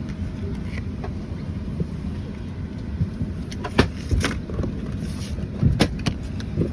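Steady low rumble of a vehicle in motion, with a few sharp knocks: two about four seconds in and two about six seconds in.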